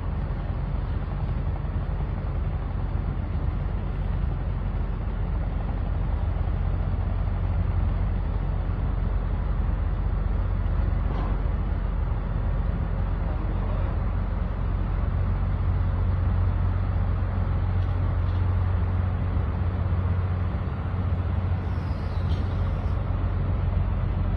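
Steady low engine rumble with a constant deep hum, unchanging throughout.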